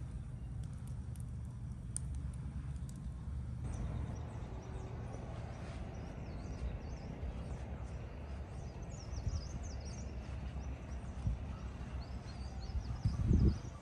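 Outdoor ambience: a steady low rumble with faint, high bird chirps about two-thirds of the way in, and a brief, louder low thump just before the end.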